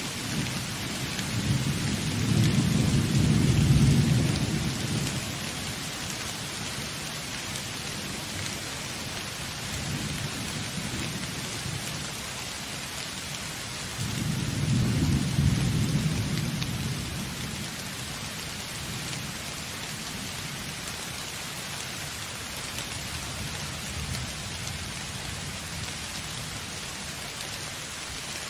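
Steady rain falling during a thunderstorm, with two long rolls of low thunder: the first a few seconds in, the second about halfway through.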